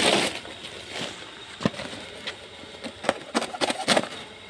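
Woven plastic sack rustling as it is cut and pulled open with a knife. There is a burst of rustling at the start, then several sharp clicks and snaps in the second half.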